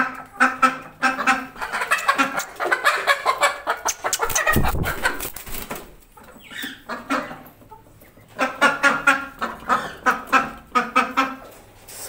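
A hen clucking and squawking in repeated runs of calls. There is a loud scuffling burst about four and a half seconds in.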